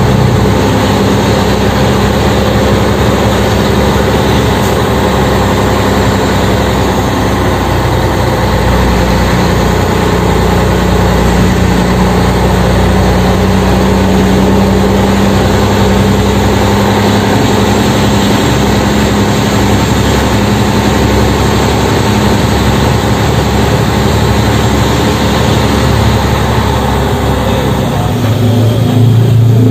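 Scania 113M 320 truck's 11-litre six-cylinder diesel running steadily under heavy load, heard from inside the cab. It gets louder and lower in pitch in the last couple of seconds.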